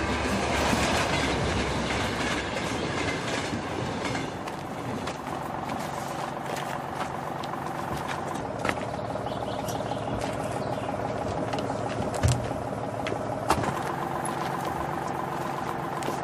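A train running on rails with a steady rumble, with a few sharp clanks in the second half.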